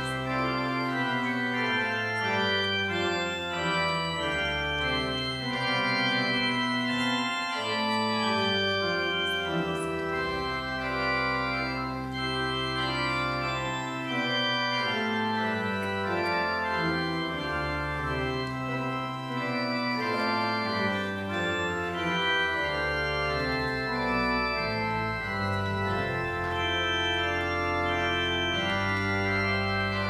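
Two-manual organ playing a slow piece in long held chords over sustained bass notes.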